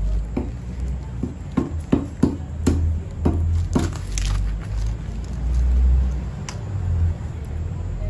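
Small campfire of sticks and burning paper, with irregular crackles and snaps clustered in the first few seconds and one more later, over a steady low rumble on the microphone.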